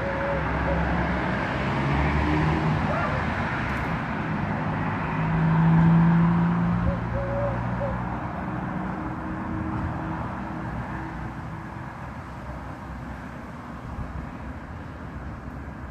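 Steady street traffic noise, with a motor vehicle passing, loudest about six seconds in, then fading.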